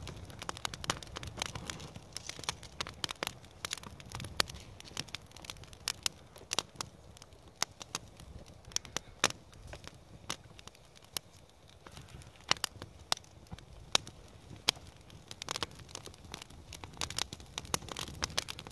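Small campfire crackling: irregular sharp pops and snaps, several a second, some louder than others, over a low background.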